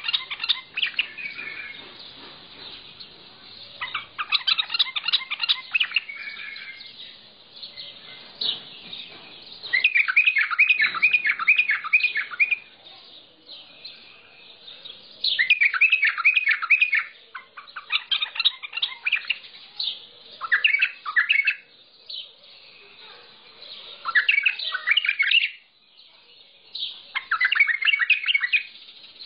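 Mandalawi bulbul singing: short phrases of rapid, repeated chirping notes, each lasting a second or two, separated by brief pauses, about seven phrases in all.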